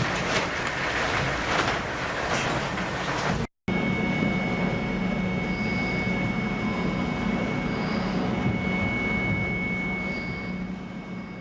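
Heavy machinery aboard a fish-processing ship running with a steady rumble and clatter. About three and a half seconds in, the sound cuts to a steady low hum with a thin high whine, which fades out near the end.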